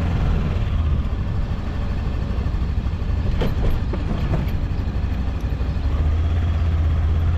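Macbor Montana XR5 500 motorcycle riding along, a steady low engine and road rumble with wind noise. A few short sharp knocks come about three and a half to four and a half seconds in, as the tyres cross a metal speed bump.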